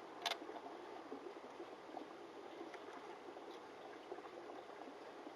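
A single sharp click about a quarter second in, then a few faint ticks, over a steady low hiss: small metal and plastic handling sounds from a knife-sharpening jig being adjusted.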